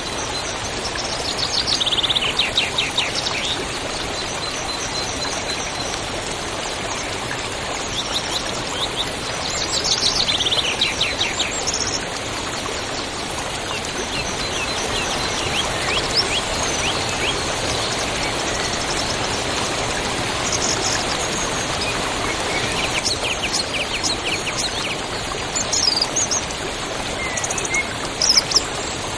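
Songbirds calling over the steady rush of a river. Rapid high trills come several times, mixed with scattered short chirps.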